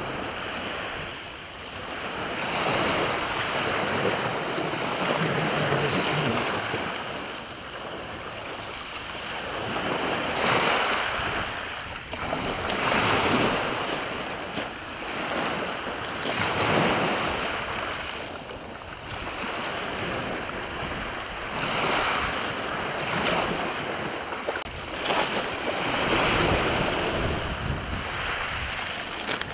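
Small waves breaking and washing into the shallows, swelling and ebbing every few seconds, with wind on the microphone.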